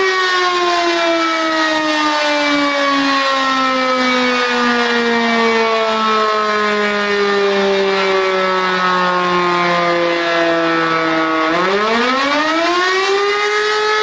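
E57 electromechanical siren winding down after being switched off, its pitch falling slowly for about eleven seconds. Near the end it is switched on again and quickly rises back to its full steady tone. This is the pause and restart between two tones of the "Feueralarm" (fire alarm) signal.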